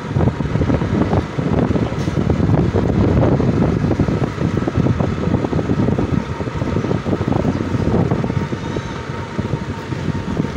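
Wind buffeting the microphone while riding a motor scooter, a loud ragged rumble with the scooter's engine running steadily underneath.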